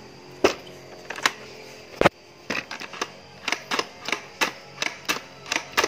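Hard plastic parts of a Hot Wheels playset clicking and knocking as they are handled, with one heavier knock about two seconds in and then quick clicks about two or three a second.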